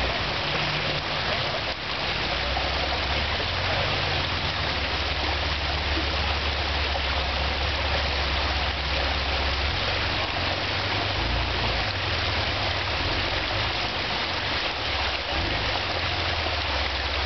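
Steady rush of creek water, with the low rumble of a Jeep Wrangler's engine swelling and easing as it crawls over boulders in the creek bed.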